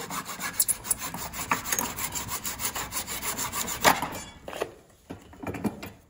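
Hacksaw sawing through the molded plastic connector piece on a speaker frame, in quick, even back-and-forth strokes. The sawing stops about four and a half seconds in, followed by a couple of light knocks.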